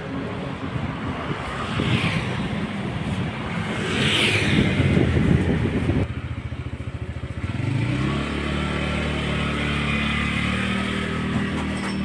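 Street traffic with motorbikes passing, two swelling past in the first half. After a sudden change about halfway, a steady engine hum comes in and holds.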